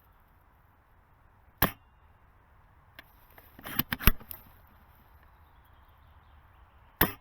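Airsoft M24 bolt-action sniper rifle firing with sharp, dry snaps: a single shot about a second and a half in and another near the end. In between, around the middle, comes a quick flurry of clicks and knocks, which is the loudest moment.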